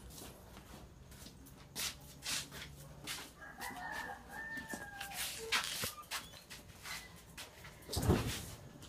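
A rooster crows faintly about three and a half seconds in, over scattered light knocks and footsteps. A dull thump near the end is the loudest sound.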